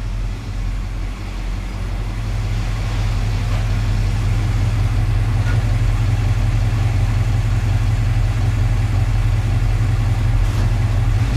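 A 1974 Dodge pickup truck's engine running as the truck drives in close, its steady low drone growing louder over the first few seconds, then idling evenly.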